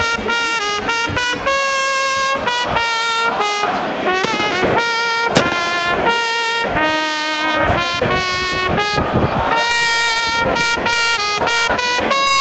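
A trumpet played by a person in a crowd: a string of loud held notes at changing pitches, with short breaks between them.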